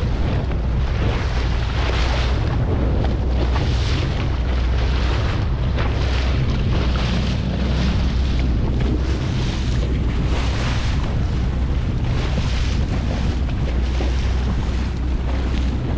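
Wind buffeting the microphone in repeated gusts over the steady low drone of a powerboat's engine running underway.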